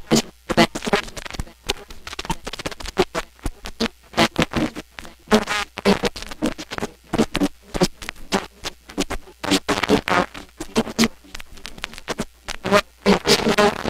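Experimental turntable scratching: a vinyl record worked back and forth by hand under the stylus, giving a rapid, irregular stream of short chopped fragments of noisy and pitched sound.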